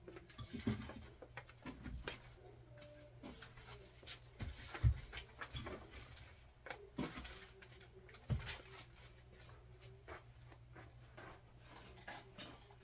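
Snack packages and boxes being handled and set down on a dresser and shelf: plastic rustling and scattered knocks, the loudest about five seconds in and again near eight and a half seconds.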